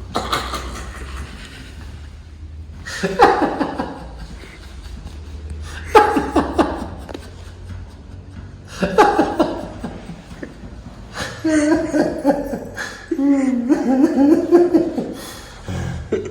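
A person laughing in short bursts about every three seconds, then in a longer run of laughter near the end, as a reaction while being given a chiropractic adjustment.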